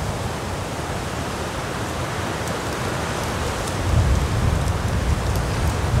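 Strong, gusty winter northwest wind blowing across an open snowy hilltop: a steady rush with a low rumble of wind buffeting the microphone, the gusts growing stronger about four seconds in.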